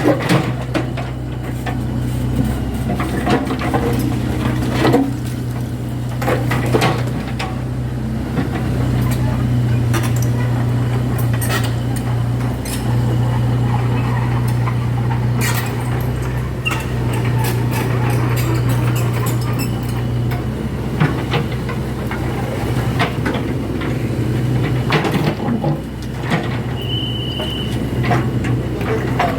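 Heavy construction machine's engine running steadily, with repeated metallic clanks and knocks from the machine working the broken sidewalk. A brief high beep near the end.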